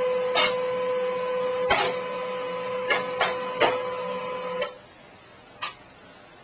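A steady mechanical hum with several sharp clicks. The hum cuts off suddenly about three-quarters of the way through, and one more click follows.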